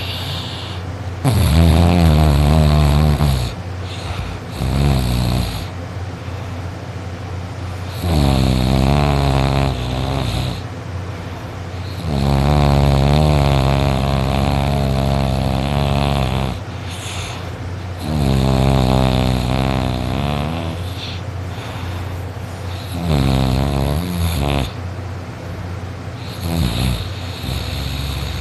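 A sleeping boy snoring very loudly: five long pitched snores of one and a half to four seconds each, about every five seconds, with softer snores and breaths between.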